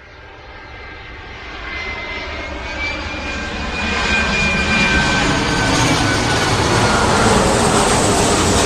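Jet airliner engines running, a steady rushing noise with a high whine, fading in from silence and growing steadily louder.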